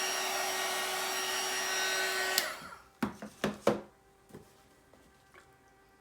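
A handheld hot-air blower running steadily, switched off with a click a little over two seconds in and winding down. Then several sharp knocks and clatters, leaving only a faint steady hum.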